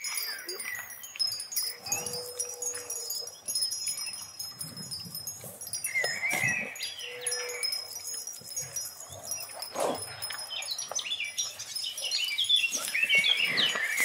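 Wind chimes ringing continuously in a steady high shimmer, with warbling bird-like calls about six seconds in and again over the last few seconds.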